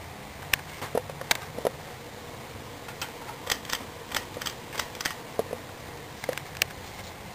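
Sierra Victorian Copy 52-inch ceiling fan, with an Emerson K55 motor, running with a steady low hum. About fifteen sharp, irregular clicks and ticks sound over it, the loudest about half a second and just over a second in.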